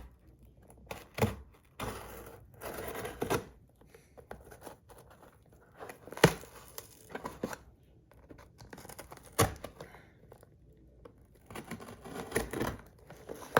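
Packaging being torn and crinkled by hand as a parcel is opened, in irregular stretches with a few sharp knocks in between.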